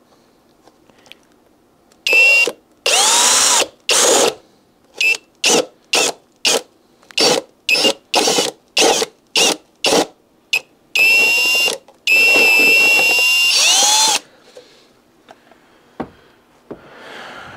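Cordless drill with a step drill bit cutting a hole for the needle valve through a model aircraft's engine cowl. It starts about two seconds in with a couple of longer runs, then a string of short trigger bursts about two a second, then two longer runs before stopping about fourteen seconds in.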